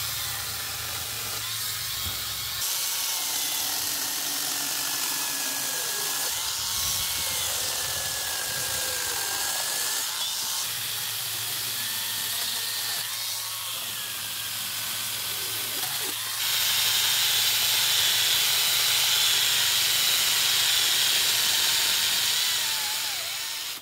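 Battery-powered electric angle grinder fitted with a chainsaw bar and chain, running and cutting through branches and small tree trunks, in several cut-together shots; it gets louder about two-thirds of the way through.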